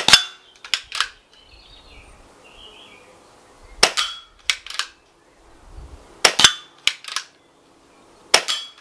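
Daystate Alpha Wolf PCP air rifle with a sound moderator fitted, fired four times in fairly quick succession, each shot a short, subdued crack. Each crack is followed by a couple of fainter clicks.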